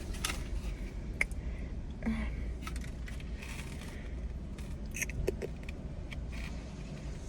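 Scattered light clicks and rustling from handling a plastic takeout container and syrup cup, over a steady low hum.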